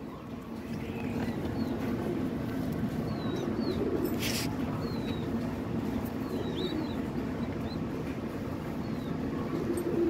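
Pigeons cooing steadily in a loft, with short high chirps scattered over the cooing and a brief hiss about four seconds in.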